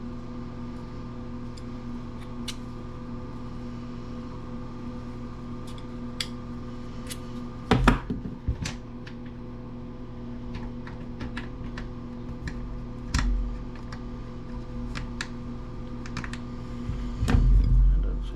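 Small metal clicks and taps of screwdriver bits being picked from a bit set and tried in a screw head. A few louder handling thumps come about 8, 13 and 17 seconds in, over a steady low hum.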